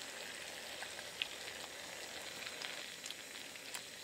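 Sugar-and-water caramel boiling in a saucepan, cooked to the caramel stage: a faint, steady sizzle of bubbling with a few small pops.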